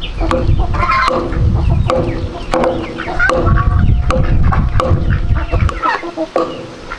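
Chickens clucking, with short higher calls and scattered sharp ticks mixed in.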